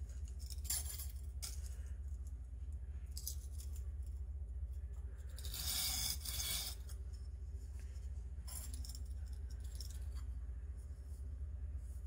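Steel knife edge ground on a whetstone with the blade stood up against the stone, grinding down the chipped edge of a thin small deba knife to reshape it: a few separate gritty scraping strokes, the longest and loudest around six seconds in, over a steady low hum.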